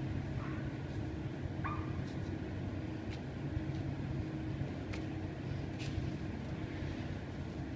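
Steady low mechanical hum of workshop equipment, with a short rising squeak a little under two seconds in and a few faint clicks.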